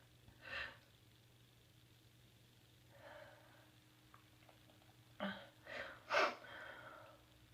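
A person sneezing: a few breathy catches of breath build up to one loud sneeze near the end, which trails off.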